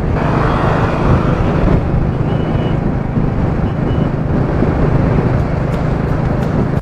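Motorcycle cruising at highway speed: a steady low engine hum under a dense rush of wind and road noise on the microphone.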